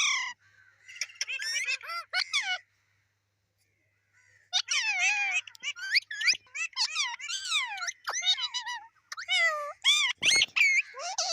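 Pet parrot calling with squawks and chattering whistle-like notes that glide up and down in pitch. It comes in bursts, with a pause of about two seconds a quarter of the way in, then calls almost without break from a little before halfway to near the end.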